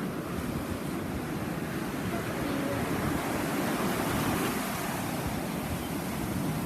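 Ocean surf breaking, a steady loud rush of waves.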